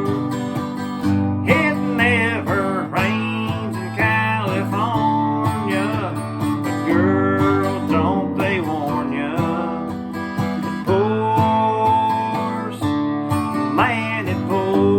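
Music: strummed acoustic guitar over a steady low accompaniment, with a wavering melody line on top.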